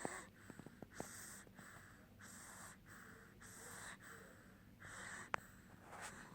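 Sleeping baby snoring softly: quick, noisy breaths in and out, about one every half second to second. A single sharp click about five seconds in.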